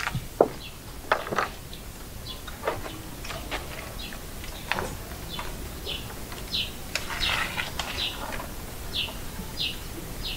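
A small bird chirping again and again in short, high chirps, more often in the second half, with scattered light clicks and knocks.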